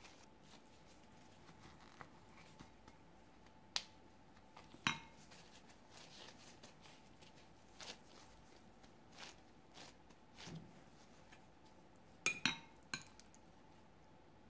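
Quiet handling sounds of gloved hands scooping and pressing cooked rice over a ceramic bowl, with scattered light clicks and taps and a few sharper ones, the loudest a close pair about twelve seconds in.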